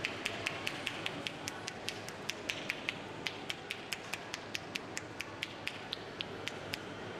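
Massage tapping: hands striking quickly on skin in a rapid series of sharp taps, about five a second, over a steady background hum. The taps stop near the end.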